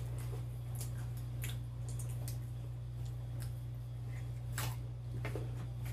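Knife and fork cutting a roasted fish fillet in a lined baking tray: a few faint scattered clicks and scrapes, the clearest a little over four and a half seconds in, over a steady low hum.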